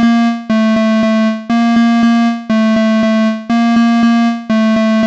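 Synthesized railway crossing warning bell: the same electronic ding repeated about once a second at an unchanging pitch.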